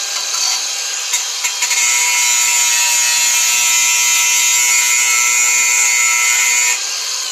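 Angle grinder running with its disc grinding on rusty steel at a truck's rear axle, a loud steady grinding. Near the end the disc comes off the work and the motor begins to spin down.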